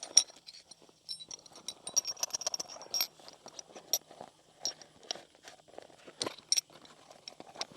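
Metal motorcycle tire levers (tire spoons) being handled, a run of irregular clicks, clinks and small rattles as they knock together.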